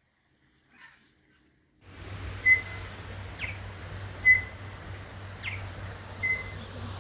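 Near silence for about the first two seconds, then a bird calling: short clear whistled notes alternating with quick falling notes, repeated every second or so, over a steady low background rumble.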